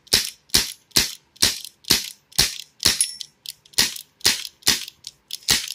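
Elite Force H8R CO2 airsoft revolver firing a rapid string of shots, about two sharp cracks a second.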